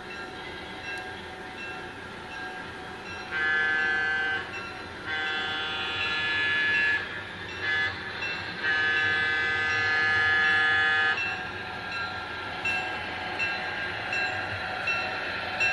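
Diesel locomotive horn sounding the grade-crossing pattern, two long blasts, a short one and a long one, over a steady running rumble that grows louder as the train approaches.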